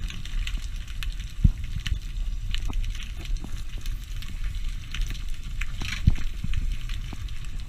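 Underwater ambience heard through a submerged camera: a steady low rumble of moving water with scattered clicks and crackles, and a couple of sharper knocks about a second and a half in and near six seconds.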